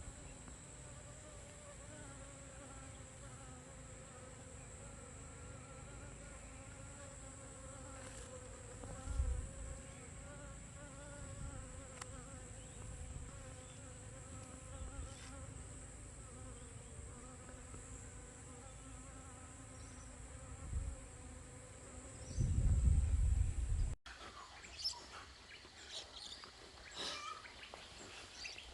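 Bees buzzing steadily around flowering catnip, their wavering hum overlapping, with low thumps of wind or handling on the microphone about 9 and 23 seconds in. After a cut near the end, the buzz gives way to short high bird chirps.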